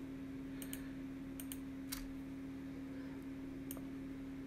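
Computer mouse clicks, about five short, sharp clicks at irregular spacing as faces are selected one by one. A steady low electrical hum runs underneath.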